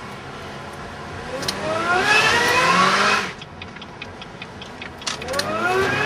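Supercharged 2.2-litre Ecotec four-cylinder accelerating hard, heard from inside the car: engine note and supercharger whine climb steeply in pitch for about two seconds and cut off suddenly. A run of light ticks follows, and a second rising pull starts near the end.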